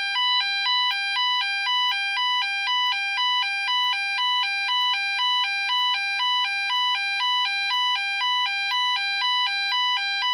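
AE&T T105N high-power fire alarm sounder sounding its tone number 1: a two-tone alarm that switches back and forth between a higher and a lower pitch about twice a second. It starts suddenly and runs steadily without a break.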